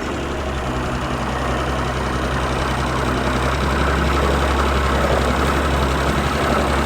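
An engine idling steadily, with a low even drone that grows slowly louder.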